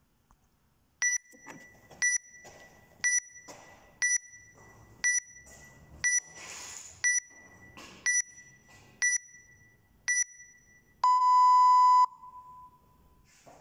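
Workout timer counting down to the start: ten short high beeps one a second, then one long lower beep that signals go.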